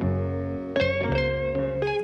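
Instrumental background music of plucked guitar notes, each struck note ringing out and fading before the next.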